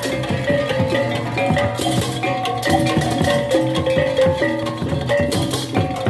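Balinese baleganjur gamelan playing: ringing metal gong-chime tones over dense drumming and cymbal clashes.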